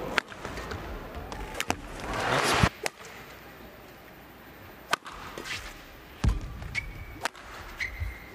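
Badminton racket strikes on a shuttlecock, sharp thwacks, with a short swell of crowd noise around two seconds in as a point ends. After a quieter stretch, a new rally begins with more racket hits and brief high shoe squeaks on the court.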